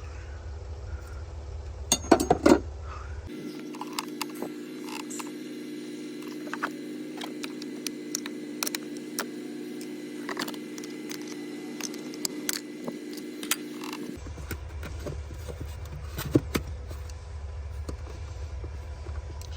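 Scattered small metal clicks and clinks of tools and battery hold-down hardware being handled, a cluster of louder ones about two seconds in, over a steady low hum. A different steady hum takes over about three seconds in and cuts off suddenly around fourteen seconds.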